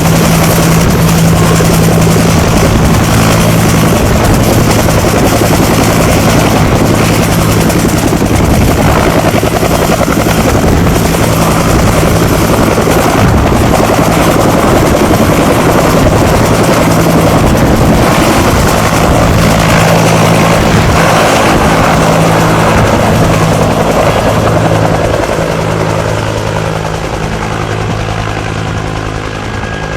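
UH-1H Huey helicopter running loud and close: a steady heavy rotor and turbine sound with a constant low throb. In the last few seconds it gets quieter and duller.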